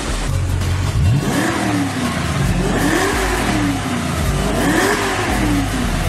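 Audi RS5's 4.2-litre V8 breathing through an Armytrix cat-back exhaust, revved three times from idle. The first blip comes sharply about a second in and two slower ones follow, each rising and then falling back toward idle.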